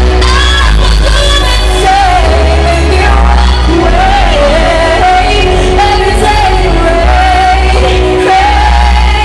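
A pop song sung live over a loud backing track, the voice carrying a wavering melody above a heavy, steady bass.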